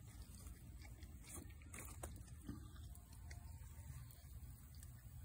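Near silence: a faint low rumble with a few faint ticks.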